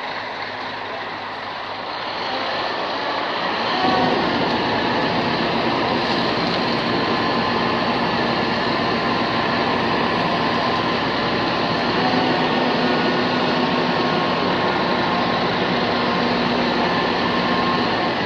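Steady mechanical noise of a heavy truck running close by, growing louder over the first four seconds and then holding level.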